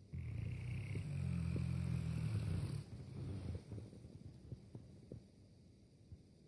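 Boerboel dog snoring in deep sleep: one long, low snore lasting nearly three seconds, fading into quieter breathing with a few faint clicks.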